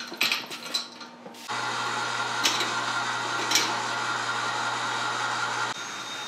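Electric hoist motor running steadily as it lifts a chain-hung platform with a cardboard box up a shaft; the hum starts about a second and a half in and stops shortly before the end. Before it, a few light knocks as the box is handled onto the platform.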